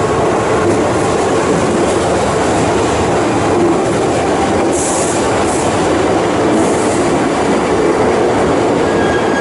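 Keihan electric train running along the platform, a loud, steady rumble of wheels on rails, with a few short high hisses about five and seven seconds in.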